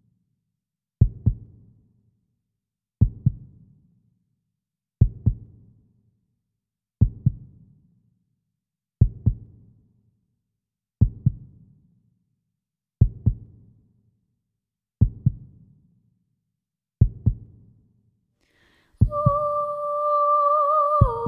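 Slow heartbeat pulse in a music score: a double thump, lub-dub, once every two seconds, with silence between the beats. Near the end a held, wordless hummed voice note comes in over it.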